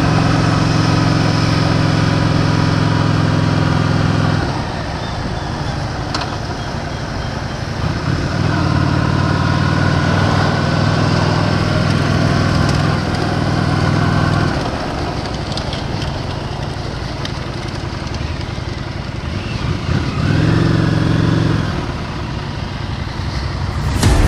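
Honda Shadow 750's V-twin engine running as the motorcycle rides along, with wind and road noise. The engine note shifts several times: about four seconds in, around eight and fourteen seconds, and again briefly near twenty-one seconds.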